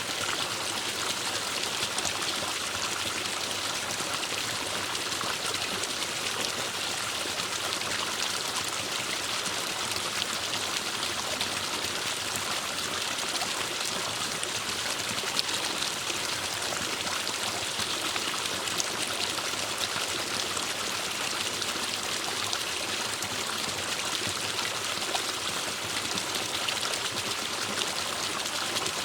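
Forest stream running steadily, water trickling and splashing over rocks.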